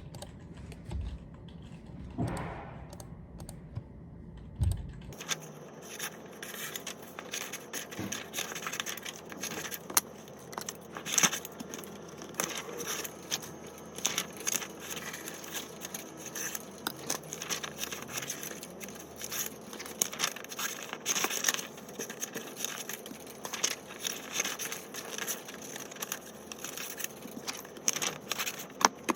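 Paper handling at a desk: rustling, crinkling and tearing with many small clicks and taps, starting about five seconds in.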